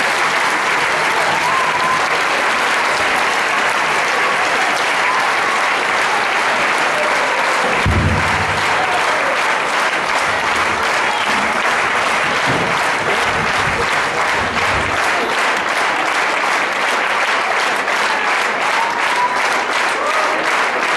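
Large audience applauding steadily, a dense sustained clapping that carries on without a break.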